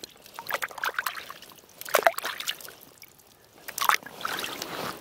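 Fish fillets rinsed in the water of an ice-fishing hole: a few short bouts of splashing and trickling, about a second apart, the loudest about two seconds in and again near the end.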